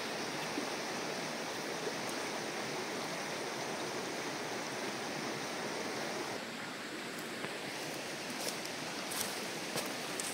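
Steady rush of flowing river water, dipping slightly about two-thirds through. Near the end come a few light crackles of footsteps in dry brush.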